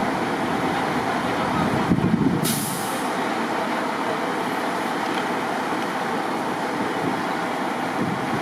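Heavy truck idling steadily, with a short hiss of air about two and a half seconds in.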